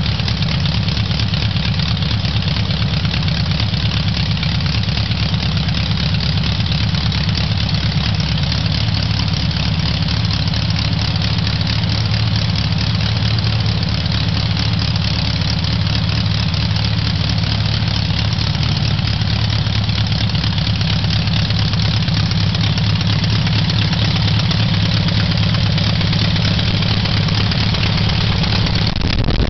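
Small aircraft engine of a Mignet HM293 Flying Flea ultralight running on the ground at a steady, constant speed, its propeller turning.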